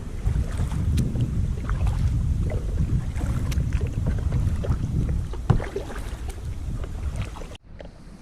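Wind rumbling on the microphone, with scattered light knocks and clicks, cutting off abruptly near the end.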